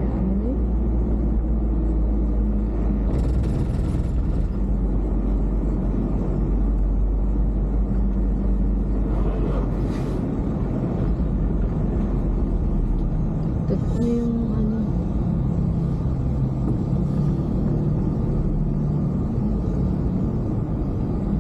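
Steady low rumble of a car's engine and tyres on the road, heard from inside the moving car in city traffic, with a few brief sharper noises from passing traffic.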